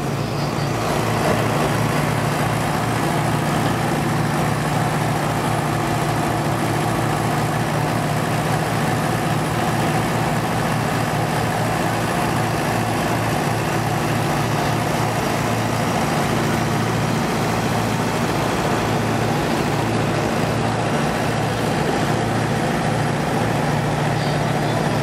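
Vintage tractor engine running steadily under load, belt-driving a Girard & Fils threshing machine. The thresher adds a continuous mechanical rattle and rumble.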